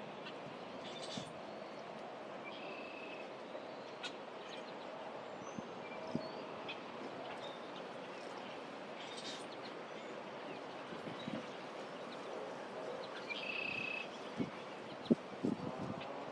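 Outdoor ambience: a steady background rush of air with birds calling over it. There are short chirps throughout and a longer call about three seconds in and again near the end, followed by a few soft knocks.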